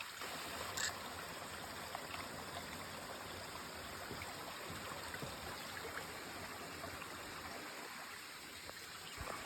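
Steady rush of a small forest stream, with a single short click a little under a second in.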